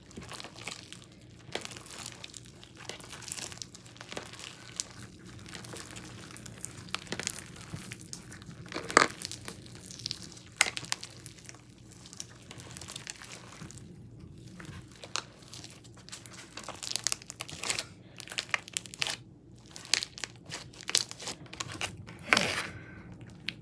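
Slime being kneaded and mixed by hand, giving irregular sticky clicks, pops and squishes.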